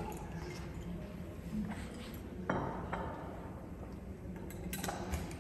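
A few light clinks and knocks of glass as a glass water bottle is set down and a drinking glass is handled. The sharpest knock comes about two and a half seconds in.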